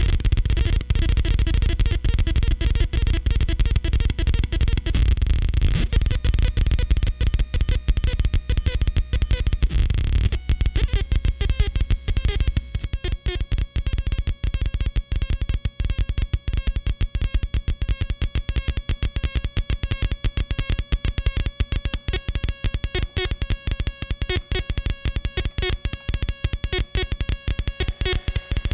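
Handmade 4093-chip quad-oscillator noise box, its four square-wave oscillators beating against each other in a gritty, distorted, rapidly stuttering drone as the frequency knobs are turned. Heavy bass fills the first ten seconds or so. Then the bass drops away and it thins to a fast pulsing over a few steady high-pitched tones.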